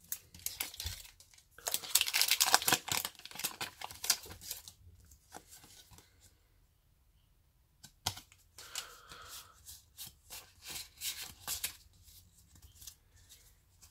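Foil wrapper of a Pokémon trading card booster pack being torn open, a dense crinkling and tearing for about three seconds. Later the cards are slid and shuffled in the hands, with one sharp click and soft rustles.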